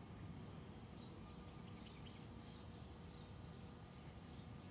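Quiet outdoor ambience: a low steady rumble with a few faint, scattered high chirps.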